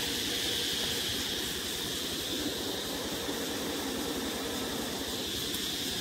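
Steady hum of a colony of wild honeybees clustered on exposed comb in a rock crevice, with a steady high insect trill behind it.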